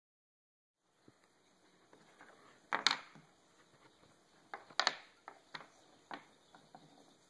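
Small wooden dowel pieces being handled and fitted together, clacking against each other and the wooden tabletop: two loud clacks about two seconds apart, with lighter taps and rustling between.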